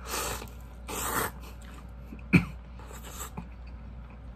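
A person slurping cup-ramen noodles in several short, hissing sucking pulls, with one brief sharp sound falling in pitch a little over two seconds in.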